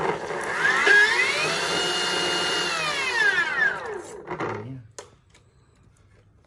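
Slow-speed cut-off saw for stainless trim switched on with its head raised and nothing under the blade: the motor whine rises as it spins up, holds steady for about two seconds, then falls away as it winds down, with a click near the end.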